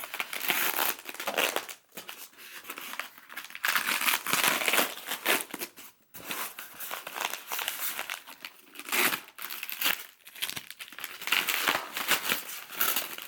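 Packing material crinkling and rustling as it is pulled and unwrapped by hand from an item, in irregular handfuls with brief pauses about 2 and 6 seconds in.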